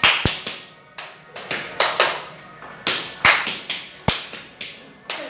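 Hand percussion: a run of sharp claps and slaps in an uneven rhythm, with three deeper thuds among them.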